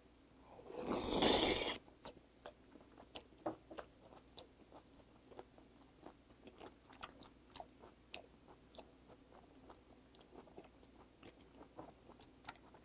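A person eating a large sauce-dipped slice of raw olive flounder sashimi: a loud slurp about a second in as the piece goes into the mouth, then steady wet chewing with small smacking clicks a couple of times a second.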